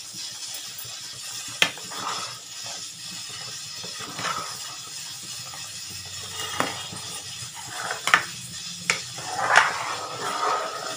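A metal ladle stirring thick simmering kadhi in a steel pot, with a few sharp clinks and scrapes against the pot's side: one clink a little over a second in and a cluster near the end. A steady hiss runs underneath.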